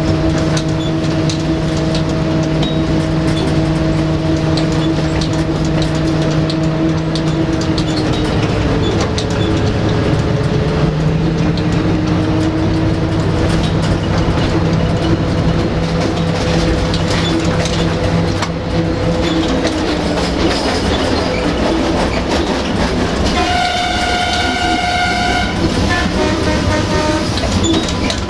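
LDH diesel-hydraulic locomotive heard from inside the cab, its diesel engine running steadily over continuous track noise. The engine note shifts about eight seconds in and settles at a new pitch. Near the end the locomotive's horn sounds a blast of about two seconds, followed by a shorter, fainter tone.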